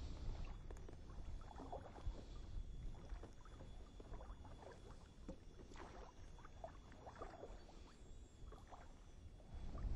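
Faint rustling and light scattered clicks of a thin underwater-camera cable being paid out by hand over the side of an inflatable PVC boat, with small water sounds at the hull, over a low rumble and a faint steady high whine.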